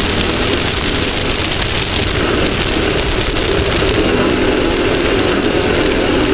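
Off-road race vehicle's engine running steadily at speed, with a constant hiss of wind and terrain noise over it.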